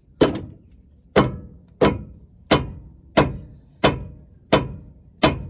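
Repeated hammer blows on metal, about eight evenly spaced strikes roughly two-thirds of a second apart, each ringing briefly: a stuck tie rod end being knocked loose without a pickle fork.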